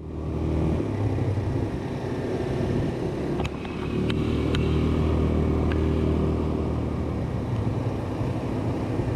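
ATV (quad bike) engine running steadily as the quad is ridden along a road, with a few brief clicks about three to four seconds in.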